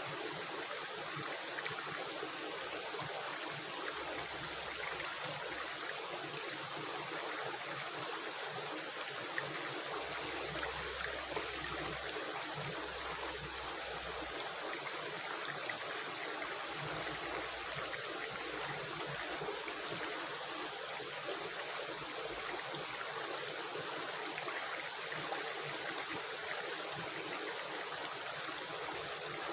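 Stream or river water rushing and gurgling steadily.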